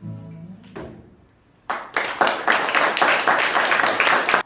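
Acoustic guitar's final chord ringing out, with one last stroke about a second in, then applause of rapid hand claps for about two and a half seconds that cuts off abruptly near the end.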